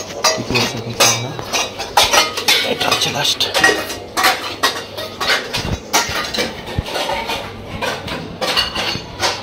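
Metal utensils and dishes clinking and clattering, in a string of sharp, irregular knocks, a few a second.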